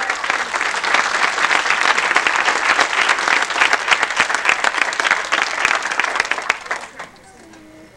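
Audience applauding, a dense patter of many clapping hands that dies away about seven seconds in.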